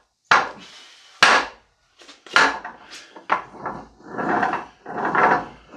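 A wooden log cart on fixed casters rolled back and forth by hand, with sharp wooden knocks in the first second and a half, then a series of shorter knocks and rattling stretches.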